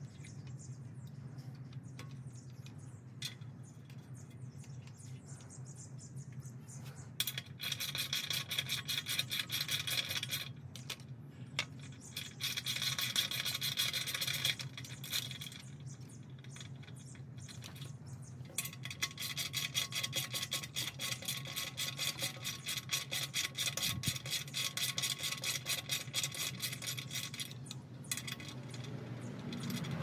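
Small hand ratchet wrench clicking fast in three runs, the longest in the second half, as it drives in the bolts holding a bicycle-rack adapter plate to a quick-release mount. A low steady hum lies underneath.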